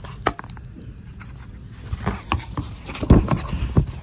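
Handling noise as a small book is picked up and opened: knocks, scrapes and rustling, with a single click about a quarter of a second in and a louder run of knocks and rustles in the second half, several of them close to the microphone.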